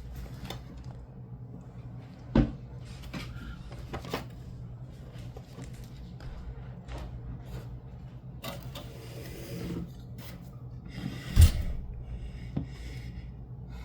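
Handling noises as things are moved around on a work surface: scattered small clicks and rubbing, with two sharp knocks, one about two and a half seconds in and a louder one near eleven and a half seconds.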